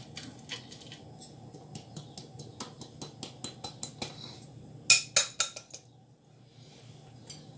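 Quick clicks and taps of kitchenware against a food processor's plastic bowl as a dry flour mixture is emptied and scraped into it, with a short run of louder knocks about five seconds in.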